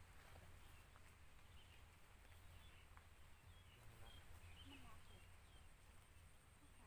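Near silence: faint outdoor ambience with a steady low hum and a few faint, short high chirps around the middle.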